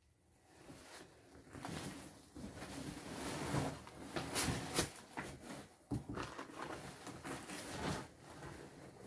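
Cardboard produce box and its contents being rummaged through: irregular rustling and scraping, with a sharp knock about six seconds in.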